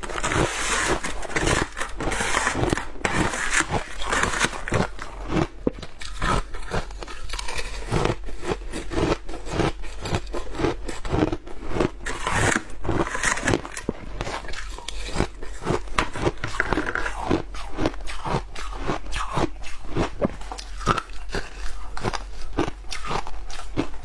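Shaved ice being crunched and chewed close to a clip-on microphone: a steady, dense run of crisp crunches.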